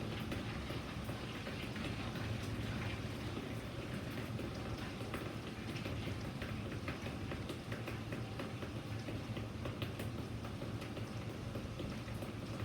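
Steady rain falling, with many individual drops ticking sharply on a nearby surface.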